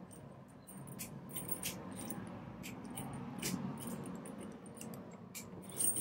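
Small metal push buttons of a 10-button push-button combination padlock clicking as they are pressed in and let back up, about a dozen light clicks at uneven intervals, with gloved fingers rubbing on the lock. The buttons are being tested one by one to feel which belong down; button one seems to want to be in the up position.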